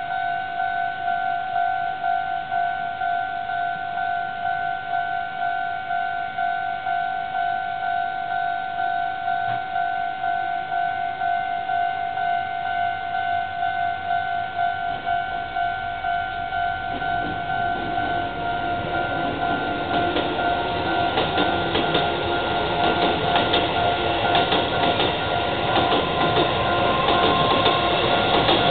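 Japanese level-crossing warning bell ringing steadily. Partway through, a Shin-Keisei 8800 series electric train approaches and grows louder, and in the last several seconds its wheels clatter over the rail joints as it passes the crossing.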